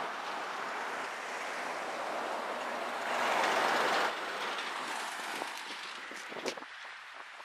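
Steady rushing wind and road noise from a moving vehicle, swelling to a louder rush about three seconds in and dying down toward the end, with a few light clicks near the end.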